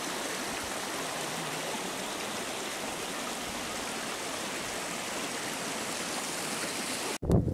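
Small rocky mountain stream running: a steady rush of flowing water. It cuts off abruptly near the end and a louder, different sound takes over.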